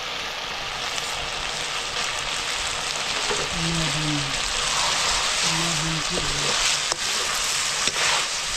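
Food frying and sizzling in hot oil in a pan, a steady hiss, with a couple of sharp clicks near the end.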